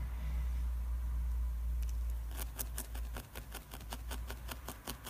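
A felting needle stabbing repeatedly into wool over a backing pad, giving quick, even crisp pokes of about five a second that begin about halfway in, as a fine line is felted in. A low hum runs under the first half and stops.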